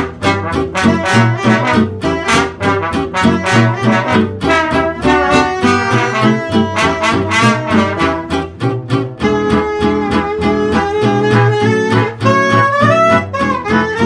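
Instrumental background music with a quick run of short, clipped notes, moving to longer held notes about nine seconds in.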